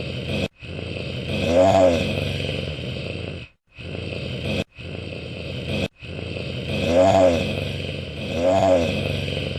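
Wolf growling: long rough growls broken by brief pauses, with a pitched snarl that rises and falls three times.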